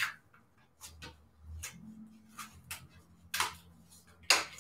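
Paper die cuts and the leftover sheet being peeled off a new, very sticky cutting mat: a series of sharp crackles and snaps as the paper pulls free of the adhesive, the two loudest in the last second and a half.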